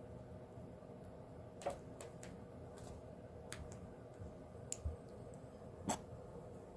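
A handful of scattered light, sharp clicks and taps, about eight over four seconds, over a faint steady hum.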